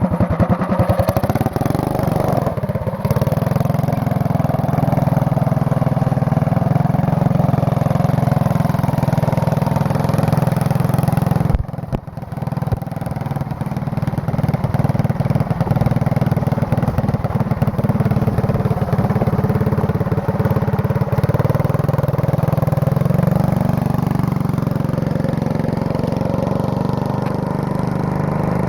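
Small engine running steadily as the machine it powers is ridden, with a brief drop in level about twelve seconds in and the engine speed rising a little over twenty seconds in.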